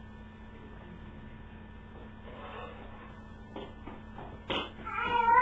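Steady low electrical mains hum, with a couple of light knocks about three and a half and four and a half seconds in as a spoon stirs in a pan. A person's voice starts loudly just before the end.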